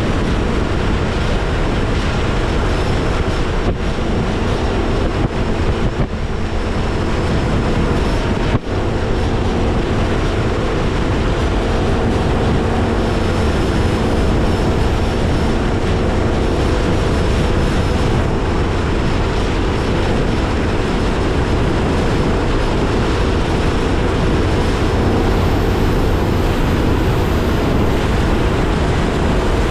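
Mercury ProXS 200 outboard motor running steadily under way on a Nitro Z19 bass boat in rough, choppy water, with heavy wind rushing over the microphone and the wash of waves.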